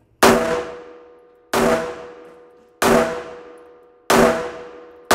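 Taurus 856 UL .38 Special revolver fired single action with Remington 130-grain full metal jacket rounds: four shots evenly spaced about a second and a quarter apart, and a fifth right at the end. Each shot rings and echoes off the walls of an indoor range.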